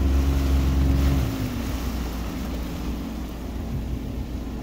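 Jet ski engine running hard, then easing off about a second in, its pitch sliding down to a lower, steady run. Wind and water rush on the microphone throughout.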